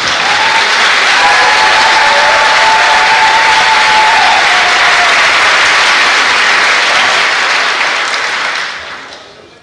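Large audience applauding, loud and steady, then dying away over the last second or so.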